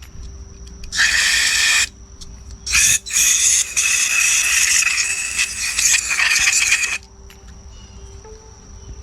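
Spray hissing in bursts as the carburetor's jets and small passages are cleaned out: a short burst about a second in, then a long one of about four seconds.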